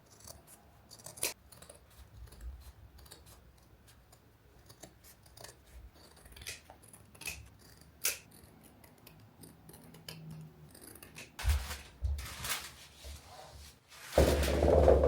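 Light handling sounds: a scatter of short sharp clicks and snips, then louder rustling with a few low thumps about two thirds of the way in and again near the end.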